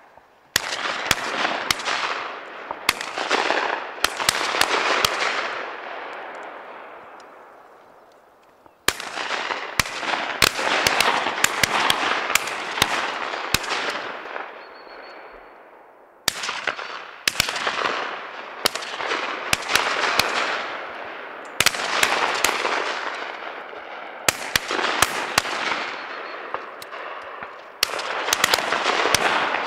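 Shotgun fire from several hunters at ducks flying over: bursts of sharp shots, several in quick succession, coming again and again. Each burst rolls away in a long echo that fades over a few seconds.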